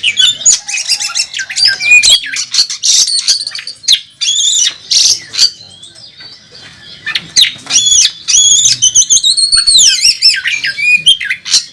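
Oriental magpie-robin (kacer) singing a loud, fast song that mixes harsh rasping notes with whistled phrases and mimicry of other birds. There is a brief lull in the middle.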